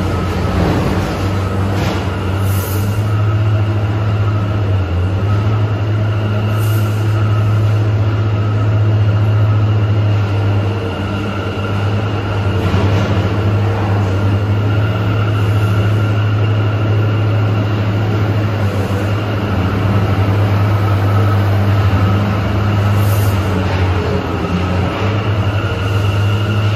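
New York City subway train in an underground station: a loud, steady low hum with two faint high whines held over it.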